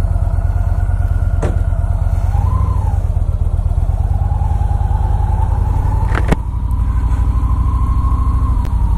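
Victory motorcycle's V-twin engine running as the bike pulls away at low speed: a steady low pulse, with the engine note climbing slowly through the middle. Two sharp clicks, about a second and a half in and just after six seconds.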